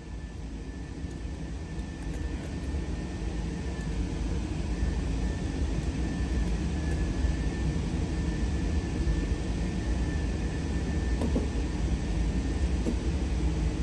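Steady low rumble with a faint, steady high whine above it, slowly growing louder; no gunshots.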